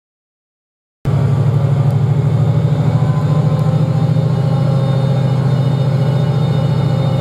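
A Class 68 diesel-electric locomotive's Caterpillar V16 engine running loud and steady as the locomotive passes, a deep drone with a fast pulsing beat and faint steady high whines above it. The sound cuts in abruptly about a second in.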